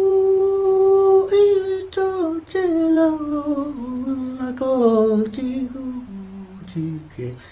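A single voice singing a wordless chant melody. It holds one long note, then steps down through several shorter notes, ending low and quieter.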